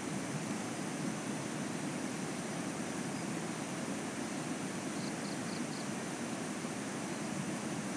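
Steady, unbroken rushing noise, with a faint high steady buzz above it and four quick faint ticks about five seconds in.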